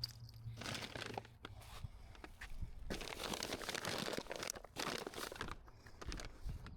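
Plastic trash bag crinkling and rustling as it is handled, in uneven spells with small sharp crackles.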